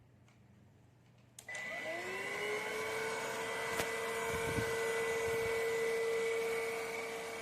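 Cordless stick vacuum switched on with a click about a second and a half in. Its motor spins up with a rising whine and settles into a steady high-pitched run. There is a brief tick and a low thud midway.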